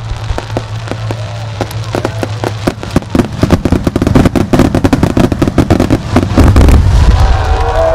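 Starmine fireworks: shells bursting in rapid succession with sharp bangs and crackle, growing denser and louder through the second half to a climax of deep booms near the end.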